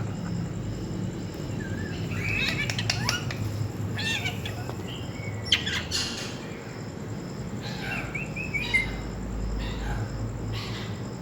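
A pet parrot chirping and squawking in short runs of calls, about two, four, six and eight seconds in, over a steady low hum.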